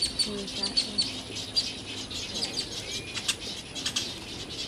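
Birds chirping: a fast, even run of high chirps trailing off in the first second, then scattered high chirps and clicks, with one short whistled note about three seconds in.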